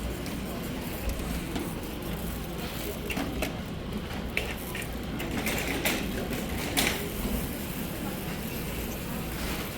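Steady low background rumble with scattered sharp clicks and knocks, most of them between about three and seven seconds in.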